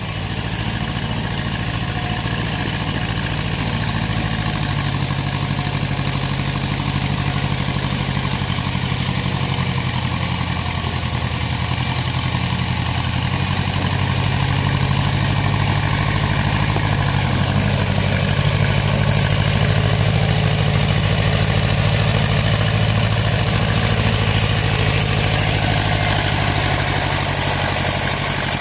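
The engine of a 1970s John Deere 400 backhoe loader running steadily at idle, growing slightly louder about halfway through.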